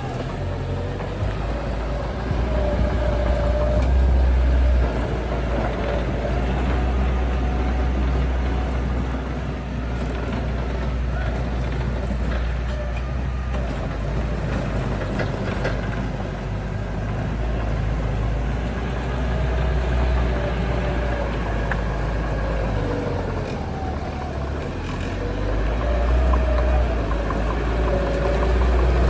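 Heavy diesel earthmoving machine working, its engine running steadily with a deep rumble and a pitch that rises and falls as the load changes.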